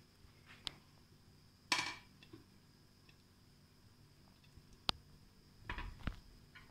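A few sparse clinks and knocks of dishes as fruit pieces are picked from a plate and set onto custard in a glass dish: a louder knock just under two seconds in, a sharp click near five seconds, and a few dull thumps about six seconds in.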